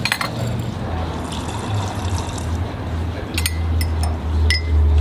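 Liquid pouring steadily into a coffee cup over a low hum. Near the end a metal spoon stirring in the ceramic cup clinks against it several times.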